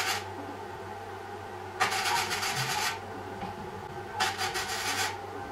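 Gasless flux-cored MIG welding arc crackling in short bursts of about a second each, twice, as short tack welds join a steel rod to a steel plate. A steady low hum runs between the bursts.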